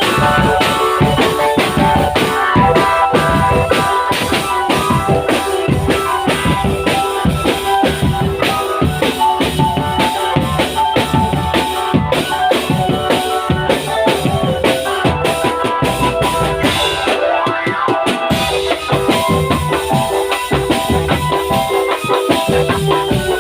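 Drum band playing: a fast, dense rhythm of bass and snare drums with a pitched melody over it.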